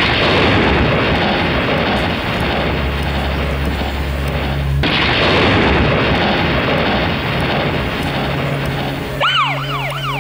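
Dramatic stage sound effects for a jatra scene: a loud rushing noise over a low held drone. It cuts off for a moment a little before halfway and starts again, then ends in a few quick rising-and-falling siren-like whoops.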